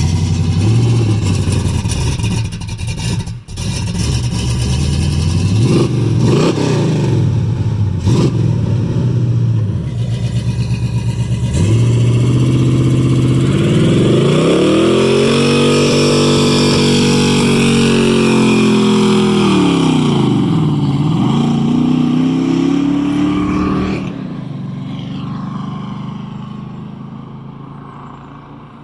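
1967 Pontiac Firebird doing a burnout: the engine is blipped and revved hard several times, then held at high revs for about twelve seconds while the rear wheels spin, rising, dipping briefly and rising again. The revs cut off near the end and the sound fades away.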